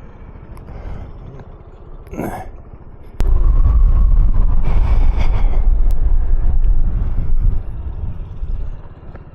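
125 cc motor scooter running at low speed as it pulls in to park. About three seconds in, a much louder low rumble starts suddenly and lasts about four seconds before easing off.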